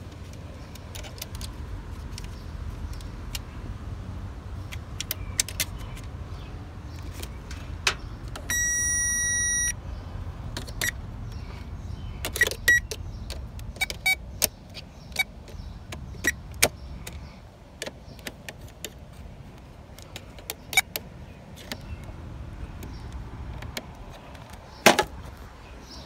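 Scattered clicks and small knocks of hand work on a car's under-hood fuse box and battery hardware. One steady electronic beep lasting about a second sounds about a third of the way in, and a sharp knock comes near the end.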